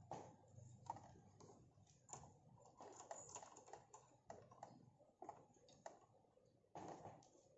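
Faint, irregular clicks and taps of plastic parts being handled, as the pieces of a plastic LED desk lamp stand and its cord are fitted together by hand.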